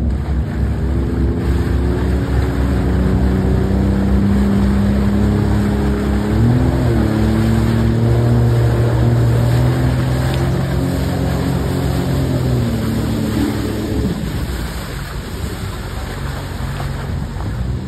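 Motorboat running fast across choppy water, with a steady rush of water and spray beneath a droning engine tone that steps up in pitch about six seconds in and drops away about fourteen seconds in.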